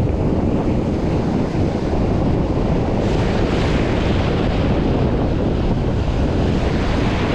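Strong wind buffeting the microphone over the steady wash of breaking surf, the surf swelling louder about three seconds in.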